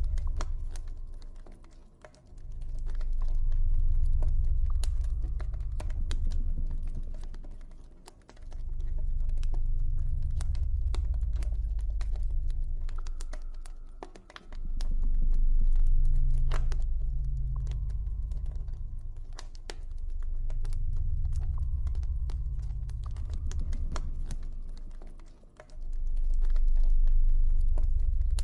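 Campfire crackling with irregular sharp pops and snaps over a deep, low ambient drone that swells and fades about every six seconds, with faint soft held tones above it.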